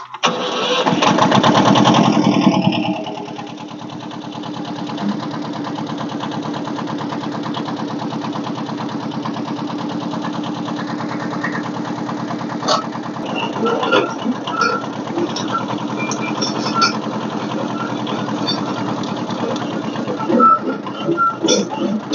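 Kubota's engine starting: a loud burst as it catches and runs up for about three seconds, then settling into a steady idle. Scattered clicks and knocks join in from about twelve seconds in.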